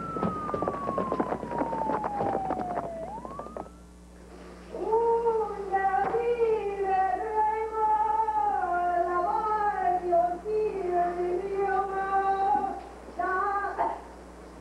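A long tone gliding steadily downward over clatter and noise, cut off after about three and a half seconds. About five seconds in, a wavering high melody of held notes begins, like a voice singing or a wailing instrument. It stops near the end and comes back briefly.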